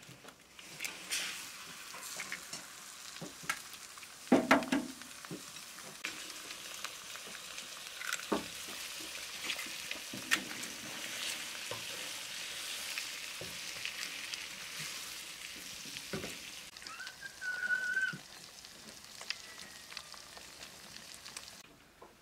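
Eggs sizzling as they fry in hot fat in a small aluminium pan, with sharp knocks of eggs being cracked and a wooden spoon tapping and scraping the pan.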